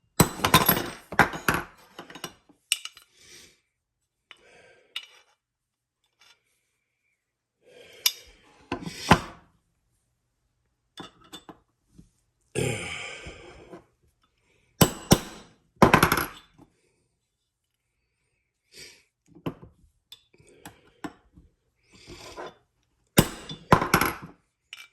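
A small hammer tapping a metal punch to drive a pin part-way into an AR-15 lower receiver, in short groups of sharp metallic taps with pauses between. Lighter clinks of tools and parts being handled fall in the pauses.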